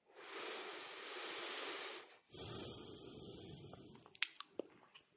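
A person breathing heavily close to the microphone: two long breaths, one of about two seconds and then, after a short gap, another fading out, followed by small mouth clicks.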